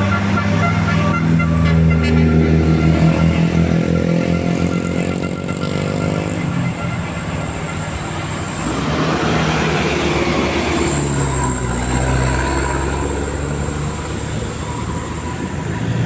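Bus's multi-tone telolet horn (basuri type) sounding a run of held musical tones that step from pitch to pitch over the running engine, with one tone sliding upward for a couple of seconds about four seconds in.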